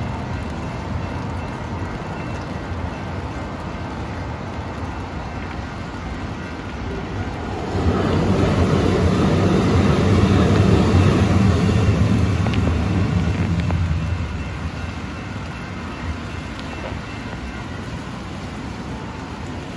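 Calgary C-Train light-rail train passing over a level crossing: its running noise swells about eight seconds in, holds for about six seconds and then fades away.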